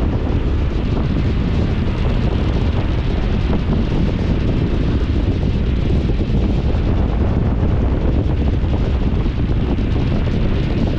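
Wind buffeting the microphone, a steady loud rush with a heavy low rumble and no let-up.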